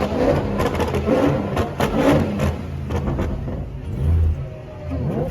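Dodge Hellcat's supercharged V8 running hard under acceleration, its loudness rising and falling.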